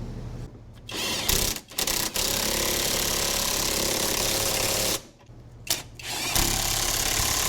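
Handheld power tool run in a few short bursts, then in two longer steady runs of about three and two and a half seconds.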